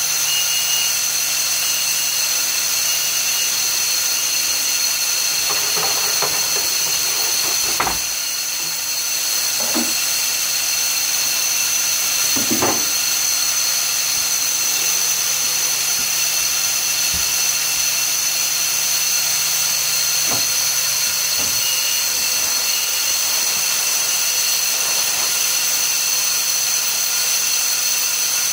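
Steady whine and hiss of industrial machinery at a bulk plastic pellet box-filling station, several high tones over a low hum, with a few scattered knocks and thumps from boxes and pallets being handled.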